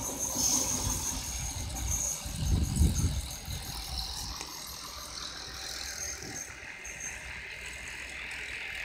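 ICE 3 high-speed train receding after running through the station, its rolling noise and a thin high hiss from the rails dying away. A brief low rumble swells about three seconds in.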